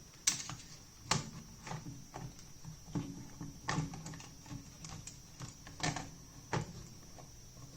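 Irregular light clicks and taps of small plastic parts being handled, about a dozen spread unevenly, over a faint steady high whine.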